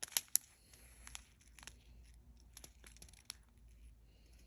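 Plastic packaging crinkling, with scattered light clicks, as a small bag of round diamond-painting drills is handled. The two sharpest clicks come just after the start.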